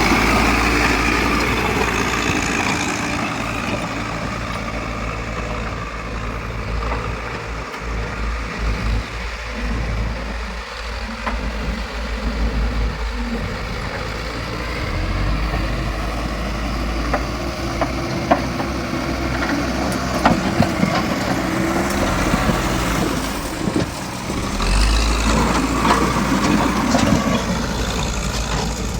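JCB backhoe loader's diesel engine running steadily as the machine works, with a few sharp metallic knocks and a stretch where the engine grows louder near the end.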